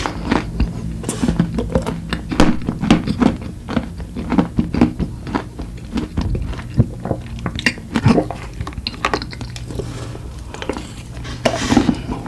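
Close-miked eating of desserts: bites and chewing, with many irregular sharp crackling clicks.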